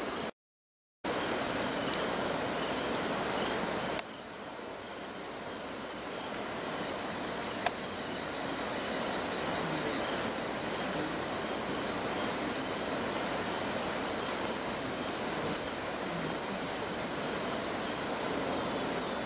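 Evening chorus of insects: a continuous high-pitched trill held at one pitch over a steady background rush. It cuts out completely for under a second near the start and comes back a little quieter at about four seconds.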